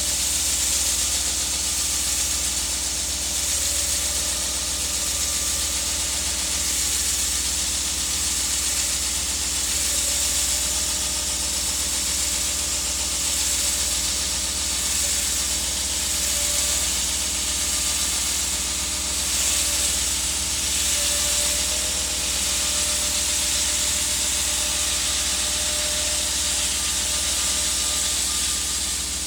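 Concrete-cutting saw running steadily through a 20-inch-thick slab, a continuous high hiss over a low steady hum.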